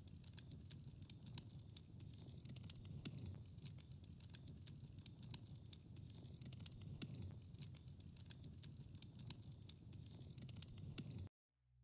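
Faint crackling of a fire: many small irregular clicks and pops over a low rumble, cutting off abruptly near the end.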